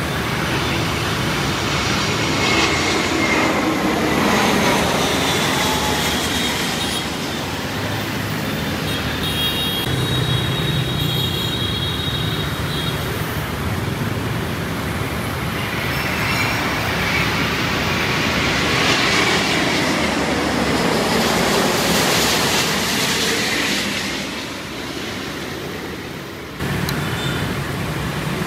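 Outdoor engine and traffic noise: a steady rumble and hiss that swells and fades twice, with a thin high whine for a few seconds in the middle. The sound changes abruptly near the end.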